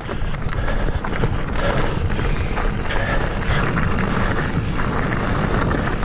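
Mountain bike riding a dirt singletrack trail: a steady low rumble of tyres on dirt with many small knocks and rattles as the bike goes over bumps.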